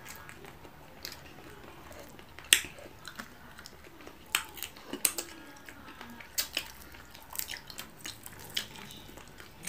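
Close-up mouth sounds of people eating fried tilapia by hand: chewing and biting, with sharp, irregular clicks and smacks scattered through.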